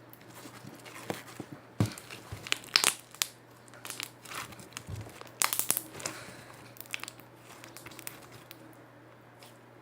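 Slime being kneaded and pulled apart by hand, giving irregular sticky crackles and pops, loudest about two, three and five and a half seconds in.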